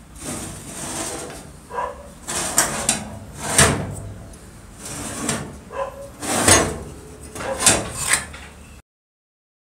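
Old, rusty electric circular saw being handled and turned over by hand, its metal body clunking and scraping against the floor, with several louder knocks.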